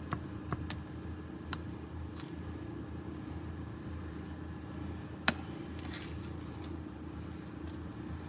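A few light clicks and taps of a metal spoon against a glass mixing bowl and a foil-lined muffin tin as batter is spooned out, the sharpest a little past halfway, over a steady low hum.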